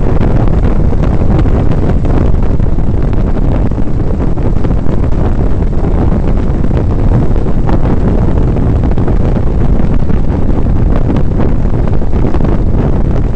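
Steady, heavy wind noise on the microphone of a camera riding on a moving motorcycle, a loud low rumble of wind and road noise with no changes.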